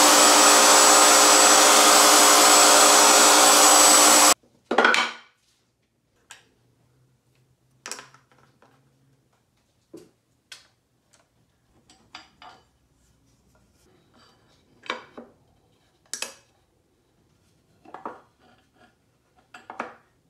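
Table-mounted router running loud and steady while a pine board is fed along the fence, cutting off abruptly about four seconds in. After that come scattered short knocks and clinks as wooden blocks and hand tools are handled on the metal router table top.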